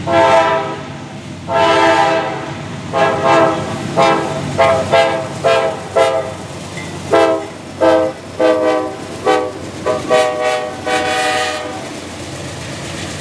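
Diesel locomotive air horn sounded as a horn show: two longer blasts, then a rapid string of short toots and a final longer blast, over the steady low rumble of a train on the move.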